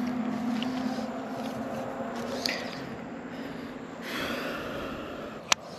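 Rustling of dry grass and clothing as someone moves about in it, with one sharp click near the end.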